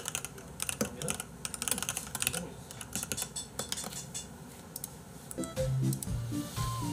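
Typing on a computer keyboard: a quick run of key clicks for the first four seconds or so. About five seconds in, background music with a stepping bass line starts.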